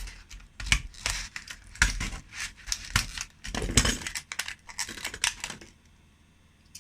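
A packet of replacement blades being handled and opened: crinkling, tearing packaging with sharp clicks, stopping a little before the end with one last click.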